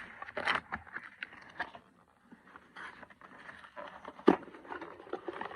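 Plastic toy dart blasters and their packaging being handled: scattered scrapes and light clicks, with one sharp click about four seconds in.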